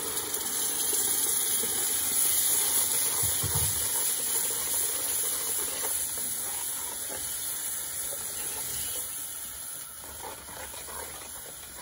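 Yogurt-and-onion paste sizzling in hot oil and fried spice masala in a pan as it goes in: a steady hiss that slowly dies down. There is a brief low knock about three seconds in.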